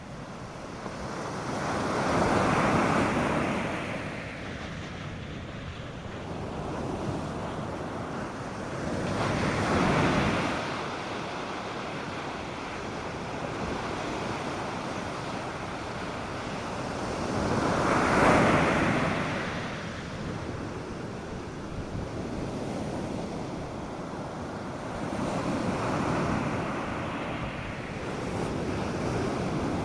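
North Sea surf breaking on a sandy beach: four waves swell up and wash in about eight seconds apart over a steady rushing wash.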